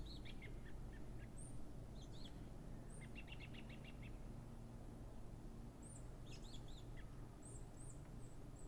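Faint chirping of small birds: scattered short high chirps, with a quick run of about eight notes about three seconds in, over a steady low background hum.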